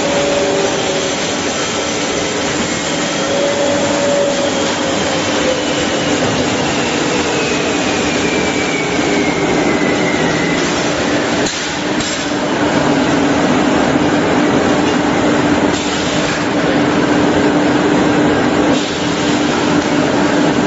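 Plywood edge-trimming saw (DD saw) running: its circular saws and roller feed make a loud, steady machine din with a constant hum. Partway through, a high whine slowly falls in pitch.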